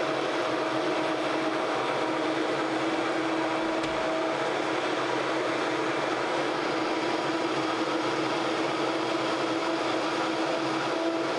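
Vitamix blender motor running steadily, blending a smoothie, with a constant whir at an even pitch.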